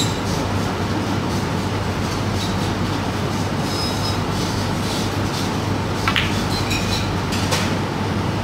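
Steady rumbling background noise in a snooker room, with a few short light clicks as the black ball is lifted from a pocket and set back on its spot on the table.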